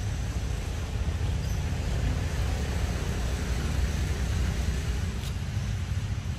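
Steady low outdoor rumble with a fainter hiss above it, holding at an even level.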